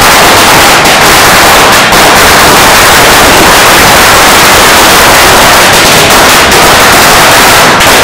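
Ground fountain firework spraying sparks: a loud, steady hiss with crackling that overloads the microphone.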